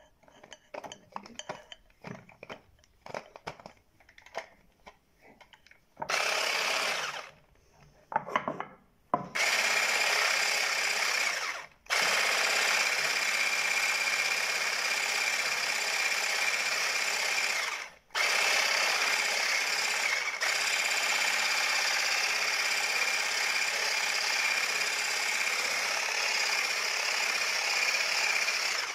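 Electric hand mixer whipping chantilly cream with cold milk, running steadily with a fixed whine and stopping briefly three or four times. Before it starts, a few seconds of light clicks and scraping of the beaters in the bowl.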